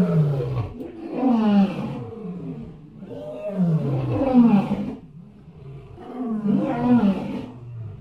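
A large animal's deep calls, about four of them, each about a second long and sliding down in pitch, with short pauses between.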